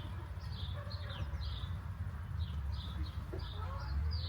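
Small songbirds chirping, a quick run of short, high, downward-slurred notes, several a second, over a steady low rumble.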